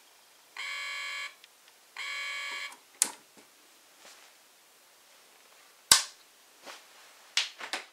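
Homemade electronic toy box sounding two buzzy electronic beeps, each about two-thirds of a second long, a second and a half apart. Then come a few sharp clicks as the box is handled, the loudest about six seconds in.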